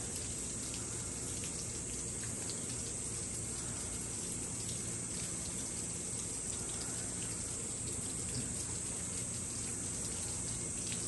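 Steady rain falling, with scattered drips and patters.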